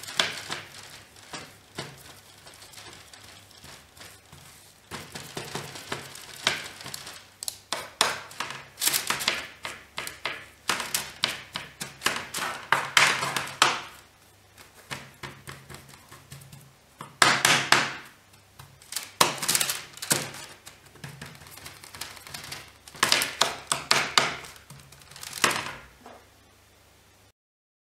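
Metal spoon pressing and scraping a sticky, seedy chocolate mixture flat on baking paper over a tray: irregular scrapes, taps and paper crinkles coming in clusters. The sound stops suddenly near the end.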